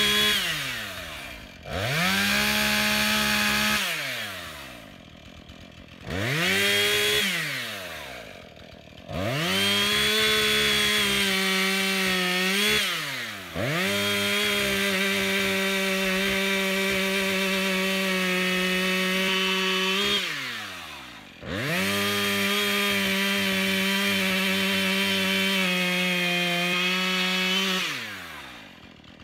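Two-stroke chainsaw bucking a log: about six cuts, each revving up to full throttle and held for a few seconds, the longest about six seconds. Between cuts the saw falls back to a low idle.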